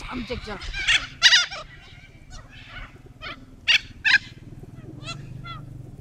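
Corellas calling: a series of short, harsh screeches, one after another, over a steady low hum.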